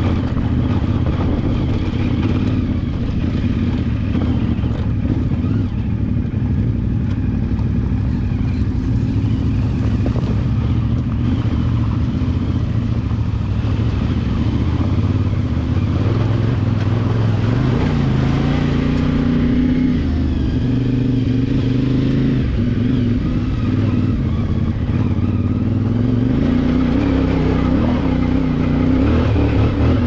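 CFMOTO 450MT parallel-twin motorcycle engine running under way on a trail, its note rising and falling as the throttle changes, most noticeably in the second half.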